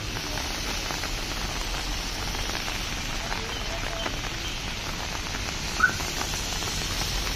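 Steady rain falling, an even hiss, with a few faint short chirps and one brief, louder rising chirp about six seconds in.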